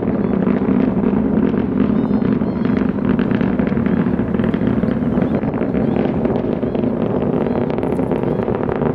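Starship SN11's Raptor rocket engines during ascent, heard from afar as a steady crackling rumble, with wind buffeting the microphone.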